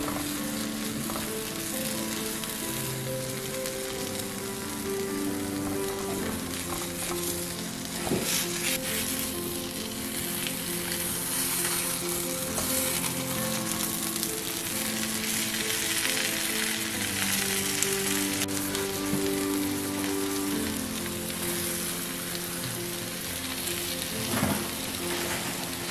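Egg-and-bread frittata sizzling in a nonstick frying pan, with a spatula scraping the pan a couple of times, over background music with held notes.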